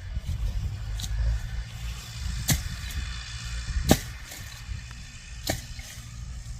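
Massey Ferguson 290 diesel tractor running, heard as a steady low rumble, with four sharp clicks or knocks about a second and a half apart; the loudest comes a little after the middle.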